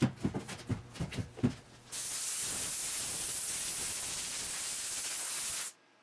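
A few quick knocks, then a steady, even hiss of gas released under pressure for almost four seconds that cuts off suddenly.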